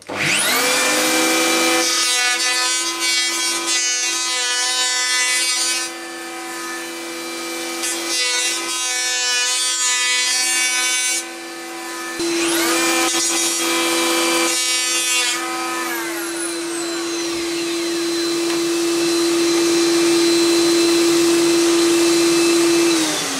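Electric hand planer starting up and planing a glued-up softwood board, its steady motor hum overlaid with the rasp of the blades cutting wood. It is cut off briefly partway through and started again for more passes. The motor then runs on without cutting and winds down near the end.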